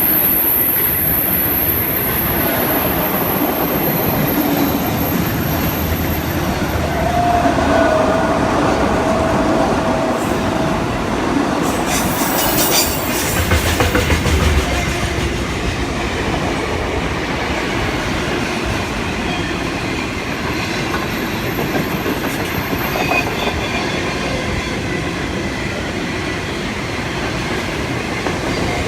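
Freight train wagons rolling steadily past at speed, wheels clattering over the rails. A high wheel squeal sounds near the start and again about two-thirds of the way through.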